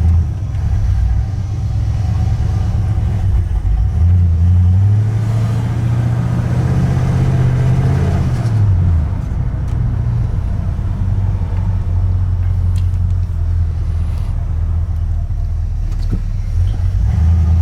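Carbureted 1985 Ford F-150 engine running. It speeds up about four seconds in, holds the higher pitch, then settles back down about nine seconds in.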